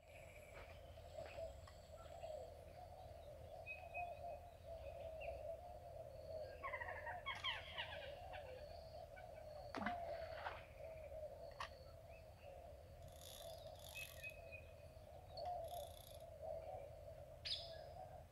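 Faint outdoor riverbank ambience: birds chirping and calling in short scattered notes, with a quick run of descending notes about seven seconds in, over a steady low drone. A brief sharp sound comes about ten seconds in, as a fishing rod is cast.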